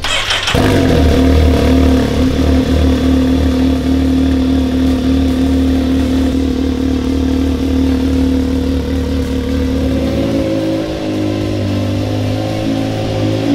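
Can-Am Maverick X3 XRC RR's turbocharged three-cylinder engine idling through a freshly installed XDR aftermarket muffler. It sets in suddenly about half a second in and runs steadily, and its idle shifts slightly higher about ten seconds in.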